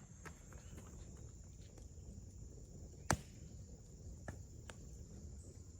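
Campfire crackling faintly, with scattered small pops and one sharper snap about three seconds in, over a steady high-pitched drone of insects.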